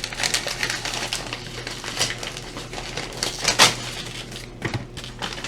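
A pack of embossing label tape rolls being handled: irregular clicks, light knocks and a hard plastic clatter, with one louder knock past the middle.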